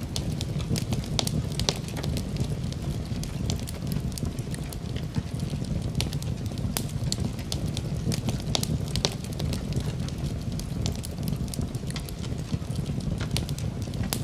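Fire in a fireplace crackling, with frequent sharp pops at irregular intervals over a steady low rumble.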